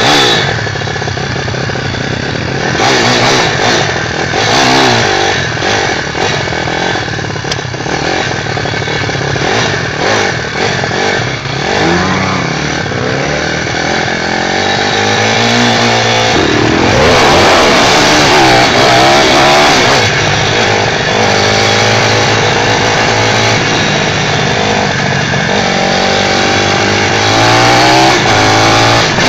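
Pit bike's small single-cylinder engine revving up and down, its pitch rising and falling through the gears, with a dense rush of noise over it.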